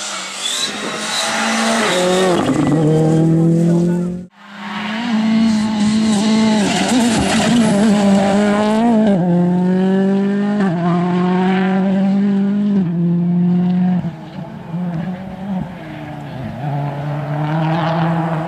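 Rally car engine at full throttle, its pitch climbing and dropping back over and over as it shifts up through the gears. The sound cuts out for a moment about four seconds in, then carries on. It grows fainter after about fourteen seconds as the car draws away.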